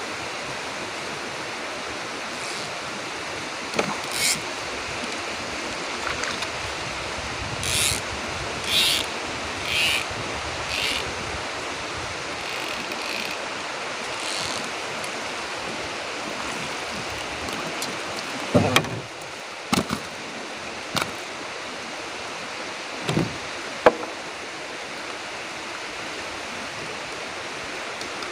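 A steady hiss of wind and river water. Partway through comes a quick run of short splashes as a small hooked fish thrashes at the surface. Later there are a few sharp knocks against the wooden boat as the fish is brought aboard.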